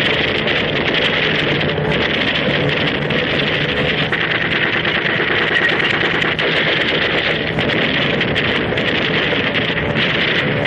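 Propeller aircraft engines droning steadily under a loud rush of air noise.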